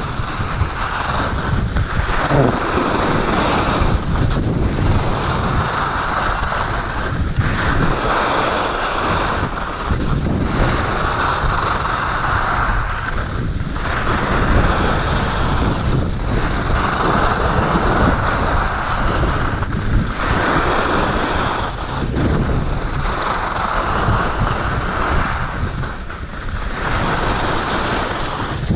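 Dynastar skis carving and scraping over packed snow in linked turns, the scrape swelling and fading with each turn about every two to three seconds, with wind buffeting the microphone.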